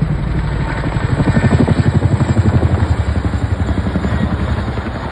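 CH-47 Chinook tandem-rotor helicopter passing close with a fast, steady rotor beat, loudest about two seconds in and then fading as it moves away.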